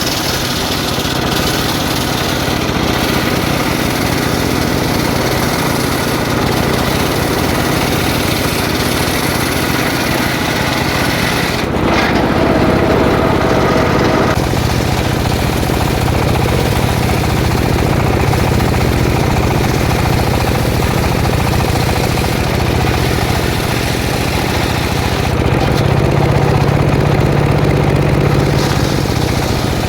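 Petrol saw engine running continuously while sawing jackfruit wood, with no break. About twelve seconds in its note turns louder and deeper, and it shifts again near the end.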